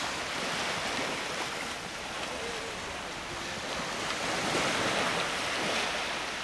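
Small ocean waves washing up on a sandy beach, a steady surf hiss, with wind rumbling on the microphone.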